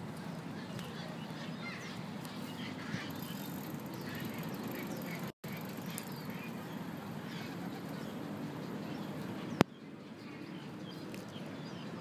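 Park ambience: a steady low rumble with scattered short chirping calls from birds. The sound drops out briefly about five seconds in, and a sharp click comes near ten seconds.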